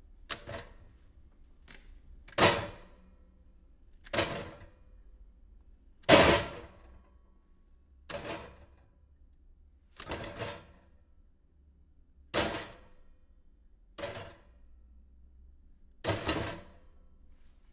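A head knocking into a refrigerator shelf again and again: about eight sharp thuds, roughly one every two seconds, each dying away within about half a second, with a fainter knock or two at the start.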